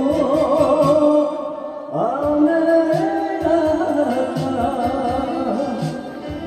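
Man singing a slow Japanese ballad into a karaoke microphone over the backing track, drawing out the sung line, with a low beat about every second and a half.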